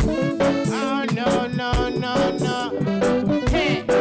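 Live reggae band playing, with electric guitar and drum kit on a regular beat, and a man singing over them.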